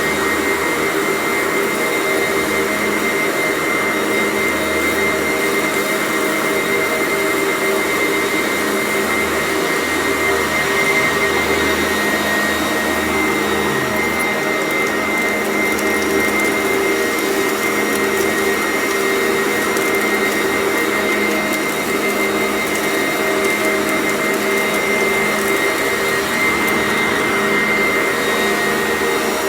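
Sanitaire vacuum cleaner running steadily, a constant motor whine with a fixed high tone over airflow hiss.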